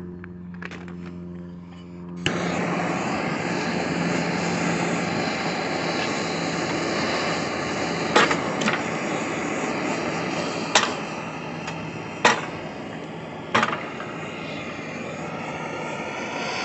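Handheld gas torch lighting about two seconds in, then a steady hissing flame as it heats a stuck engine pulley to free it from the crankshaft. Five sharp knocks come in the second half.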